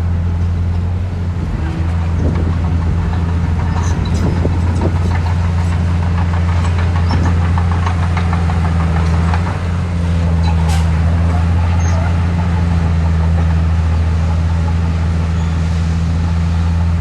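Heavy diesel engine of a construction machine running steadily, with bouts of clatter and rattling between about two and ten seconds in.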